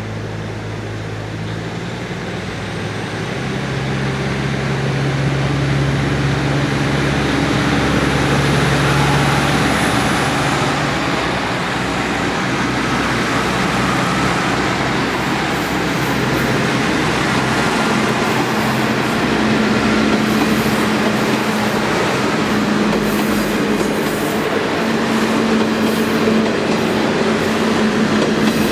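A multi-car train of KiHa 40/48 diesel railcars pulling out under power, the engines' note getting louder over the first few seconds as the cars roll past. Wheels click over the rail joints in the second half.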